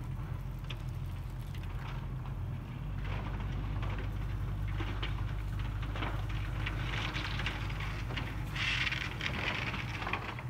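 Dry grass stalks rustling and crackling close to the microphone, over a steady low rumble; the rustling is loudest from about seven seconds in.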